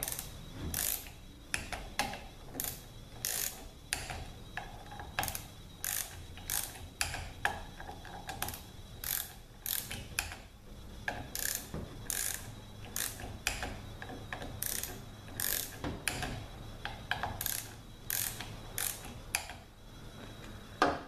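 Hand socket ratchet clicking in short, repeated bursts as it is swung back and forth, tightening the bolts on an aluminium automatic-transmission valve body.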